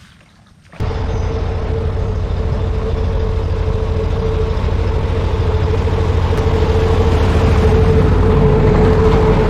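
A boat's engine running steadily, coming in abruptly about a second in with a low rumble and a steady hum.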